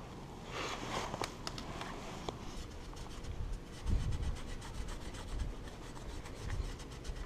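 A wad of Nevr-Dull cotton polish rubbing over a chrome motorcycle wheel rim: a run of quick scrubbing strokes, with a dull knock about four seconds in.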